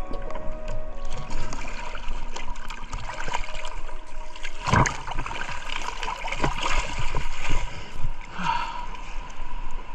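Water splashing and gurgling, with irregular clicks and the loudest splash about five seconds in.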